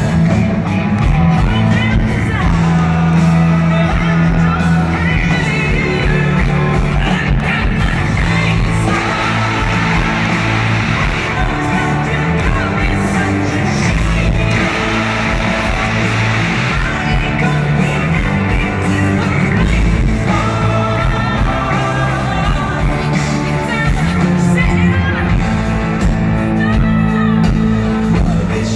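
A live country-rock band playing through the arena PA: sung vocals over electric guitar, bass guitar and drums, heard from the crowd in a large hall.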